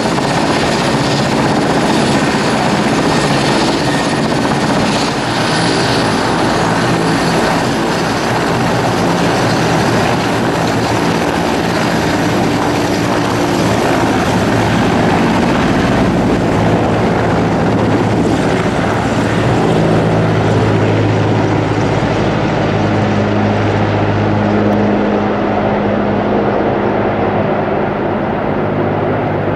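Mil Mi-8MTV-1 twin-turbine helicopter running close by, a loud steady din of main-rotor beat and turbine noise. Toward the end the higher turbine sound fades as it moves away, leaving the low rotor drone.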